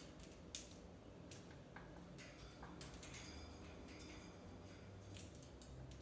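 Faint, irregular clicks and taps of a quaker parrot's beak and feet on a metal wire cage.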